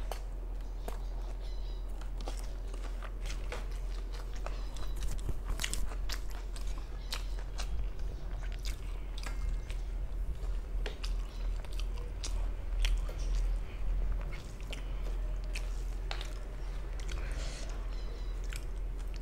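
Close-miked chewing of a mouthful of rice and curry eaten by hand, with many sharp wet mouth clicks and smacks, over a steady low hum.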